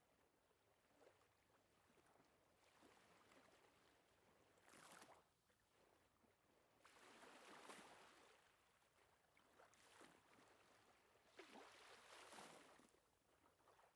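Near silence, with four faint swells of rushing, hiss-like noise that rise and fall over a second or so each, the longest near the middle.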